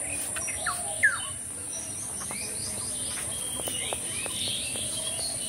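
Outdoor ambience of birds chirping over a steady high-pitched insect drone, with a loud, sharp downward-sweeping call about a second in and a run of quick chirps through the middle.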